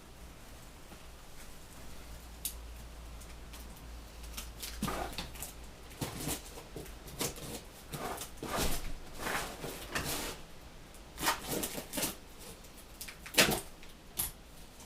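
Packaging being handled and opened: faint at first, then from about four seconds in a run of irregular rustles, scrapes and knocks.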